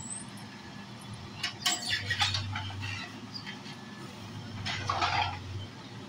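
CASE backhoe loader's diesel engine running with a steady low hum that swells twice as the backhoe works, while the bucket scrapes through loose soil and stones with a few short clinks.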